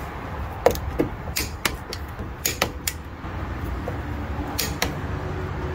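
Craftsman click-type torque wrench tightening a wheel's lug nuts: a handful of sharp clicks, several in close pairs, as the wrench reaches its set torque of 80 foot-pounds. A low steady hum lies underneath.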